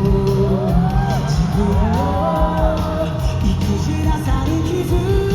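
A live pop-rock band playing with sung vocals, picked up from the audience at a concert.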